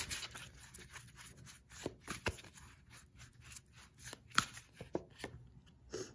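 A tarot deck being shuffled by hand: soft card rustles and riffles with a few sharper snaps as the cards slap together.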